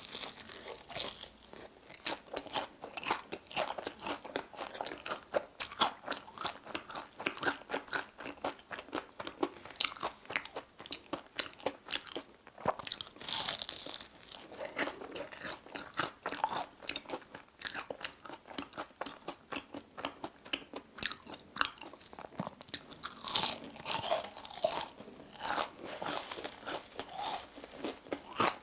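Close-up crunching and chewing of a fried potato-cube-crusted corn dog with whole mozzarella: a dense run of crisp crackles as the fried crust is bitten and chewed.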